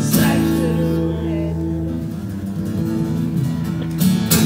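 Steel-string acoustic guitar: a full chord strummed once and left ringing, then strummed again about four seconds in. These are the closing chords of the song.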